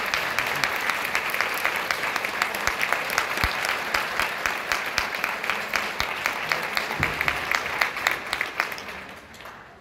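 Concert-hall audience applauding, a dense patter of many hands clapping that thins out and dies away in the last second or so.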